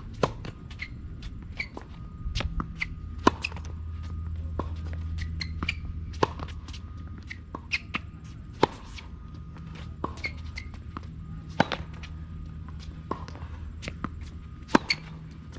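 Tennis ball hit hard with a racket on forehand groundstrokes: a sharp pop roughly every three seconds, six in all. Smaller knocks of ball bounces and footsteps on a hard court fall between the hits, over a low steady rumble.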